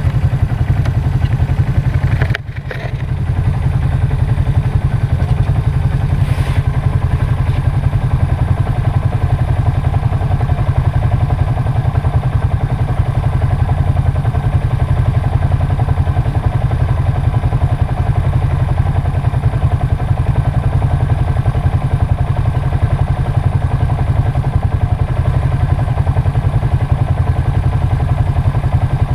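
ATV (quad) engine running steadily and loud. The level drops briefly a little over two seconds in, then comes back.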